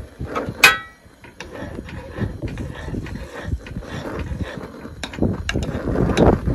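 A fork stirring noodles in a granite-coated saucepan on a portable camp stove. There is a sharp metal clink with a brief ringing note about half a second in, then repeated tapping and scraping against the pot, over a low rumble of wind on the microphone.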